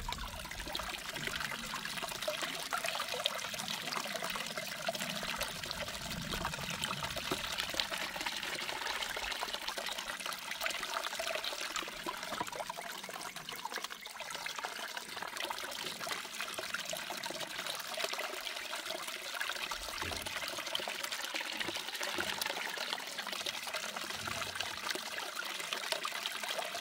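Water running steadily down a small plastic gold sluice box over its green riffle mat, a continuous trickling pour.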